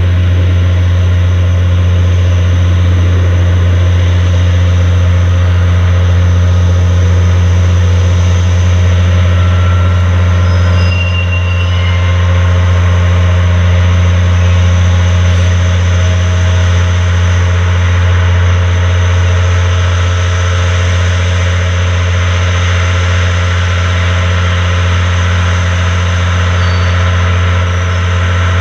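Diesel shunting locomotive's engine droning steadily under load as it moves a heavy train of freight wagons at walking pace.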